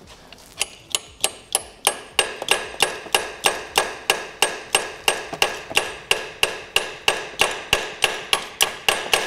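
Hammer tapping a socket bit into the head of a camshaft adjuster bolt, about three evenly spaced, ringing metallic strikes a second. The taps seat the socket fully so the bolt head does not round out.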